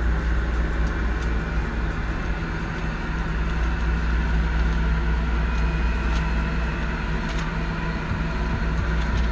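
Steady low engine drone, heard from inside a parked tool truck, with a few faint clicks.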